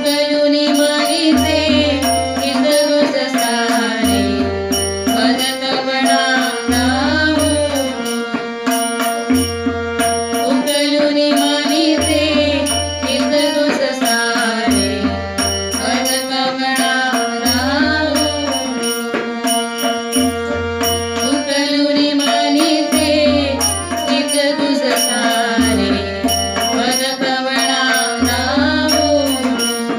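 Marathi devotional song (bhajan) with female voices singing to harmonium, over a tabla rhythm whose deep bass strokes recur about every two and a half seconds and small hand cymbals ticking steadily on the beat.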